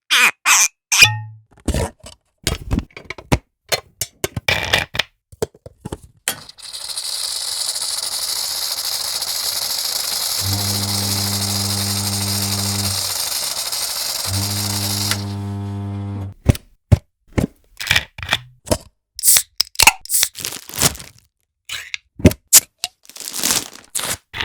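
A run of opening-and-closing sound effects: many short clicks, clacks and knocks in quick succession. About six seconds in, a steady hiss lasts some eight seconds, with a low buzz over its second half that stops sharply about sixteen seconds in, and then the clicks and knocks return.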